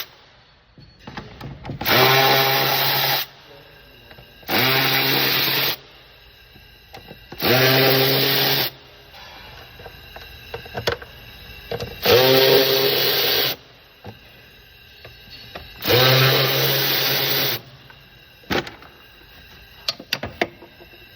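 Cordless power driver with a T20 Torx bit backing out the air filter housing screws: five short runs of the motor, each rising in pitch as it spins up, with small clicks in between.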